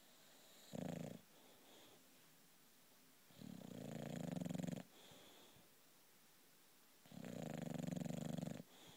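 British bulldog snoring in her sleep: three loud snores about three and a half seconds apart, the first one short, each followed by a fainter breath.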